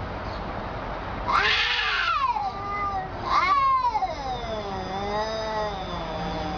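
A cat yowling: two loud calls about two seconds apart, each rising and then falling in pitch, followed by a long, lower, wavering wail.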